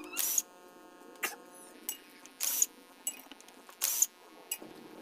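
Short, sharp metallic clicks and rasps from a hand tool working the clutch spring bolts on a Yamaha Jupiter Z's clutch pressure plate, as the clutch is taken apart. There are about six or seven separate bursts with short pauses between them.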